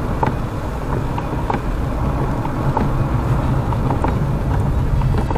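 Car driving, heard from inside the cabin: a steady low road and engine rumble with scattered light ticks.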